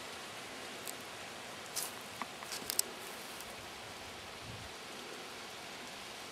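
Steady outdoor hiss with a few brief dry crackles about one to three seconds in and a soft low thud a little past four seconds.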